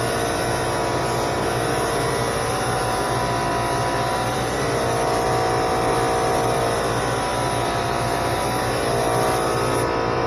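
Small 21-gallon air compressor running steadily: an even motor hum with a broad hiss of air over it.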